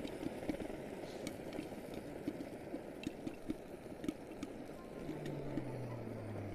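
Popcorn kernels popping inside a glass-lidded kadai, irregular sharp pops over the steady roar of a pressure stove's burner. A low steady hum comes in about five seconds in.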